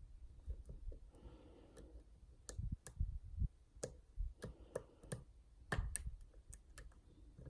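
Irregular light clicks and taps of lock picks working inside a Yale Superior pin-and-slider lock clamped in a vise, with a few heavier knocks in the middle.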